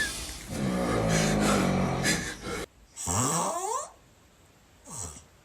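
Snoring: a long snore, then after a sudden short gap a snore that rises steeply in pitch for just under a second, and a brief fainter one near the end.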